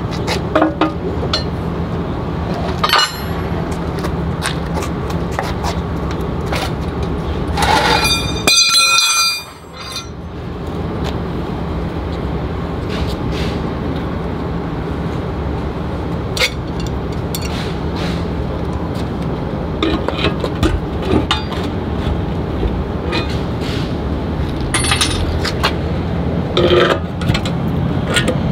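Metal hand tools clinking and knocking against the steel pin box of a fifth-wheel hitch, with one ringing metallic clang about eight seconds in, over a steady low engine hum.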